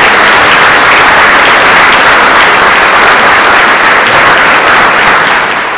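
Audience applauding, a loud, steady clapping that fades out near the end.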